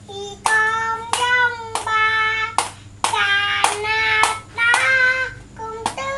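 A young child singing a children's song in a high voice, a string of short held notes, several of them starting with a sharp tap or click.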